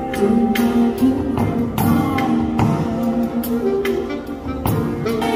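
Live small band playing: held saxophone notes over guitar, with a steady drum-kit beat and cymbal hits.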